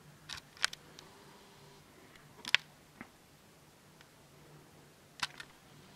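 Handling noise from a handheld camera: a few scattered sharp clicks and taps, the loudest about two and a half seconds in, over a faint steady low hum.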